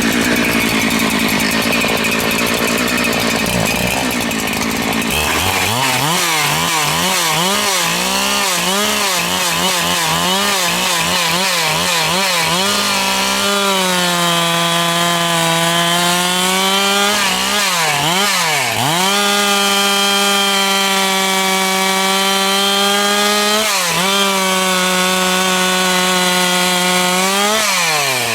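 A 372XP-type two-stroke chainsaw at full throttle, cutting through a log. Its pitch wavers for the first several seconds, then holds high and steady, dips briefly twice in the second half, and drops away at the very end as the cut finishes.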